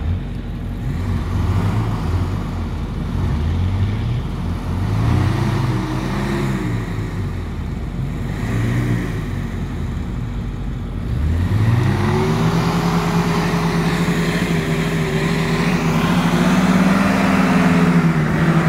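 Suzuki Vitara's engine revving hard in several short bursts, then held high for several seconds before dropping near the end, its wheels spinning while the 4x4 is stuck in mud on a tow strap.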